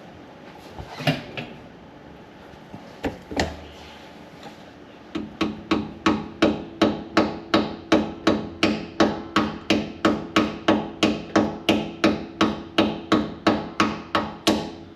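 Hammer striking metal: a few scattered knocks, then from about five seconds in a steady run of blows, about three a second, each leaving a short ring.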